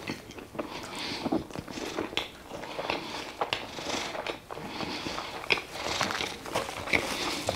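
Close-miked chewing of a mouthful of food, with irregular wet mouth clicks and smacks.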